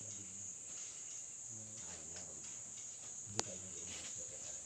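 Crickets chirring steadily in a high, even band, with faint murmured voices and one sharp click about three and a half seconds in.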